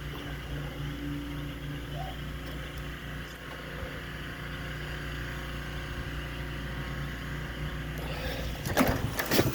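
Steady low mechanical hum of a running machine, with a burst of loud clattering knocks near the end.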